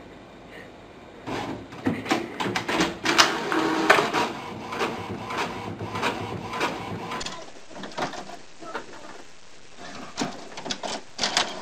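Office printer mechanism running while printing, a dense run of rapid clicks and whirring that starts about a second in. After about seven seconds it gives way to a quieter second printer with scattered clicks, which grow busier near the end.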